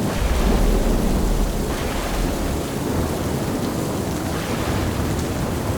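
Thunderstorm: steady heavy rain with a continuous low rumble of thunder.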